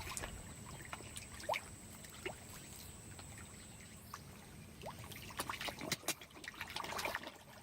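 Faint trickling and lapping of pond water, with scattered small clicks and a few short rising chirps.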